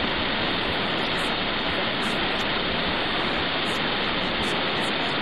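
Waterfall pouring over rocks into a pool: a steady, unbroken rush of water.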